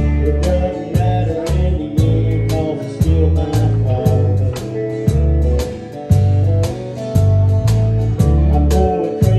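Live band playing a song: electric bass guitar and acoustic guitar over a steady beat.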